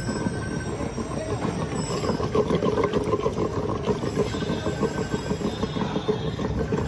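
Yogurt being churned for lassi in a large clay pot with a wooden churning stick: fast, rhythmic knocking and sloshing that gets louder about two seconds in.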